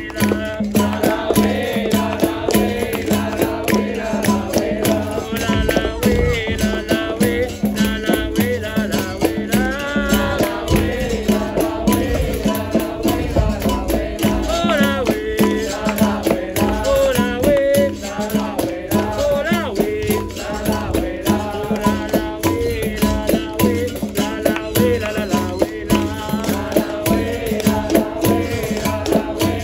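Live capoeira roda music: berimbau with its caxixi rattle, hand percussion beating steadily, and singing over the top.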